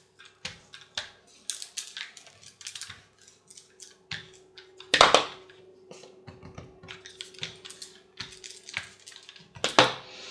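Rolling pin working a piece of rye bread dough on a floured worktop: irregular soft knocks and clacks, with a louder knock about five seconds in and another near the end.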